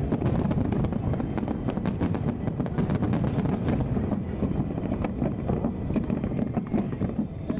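Fireworks display going off: a dense, continuous rumble of shell bursts with many sharp crackles and pops. The crackles thin out about halfway through while the rumble goes on.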